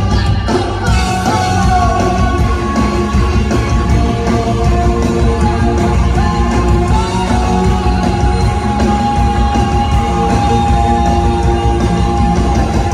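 Live rock band playing loud, with electric guitar, drums and a woman singing lead into a microphone; a single long note is held through the second half.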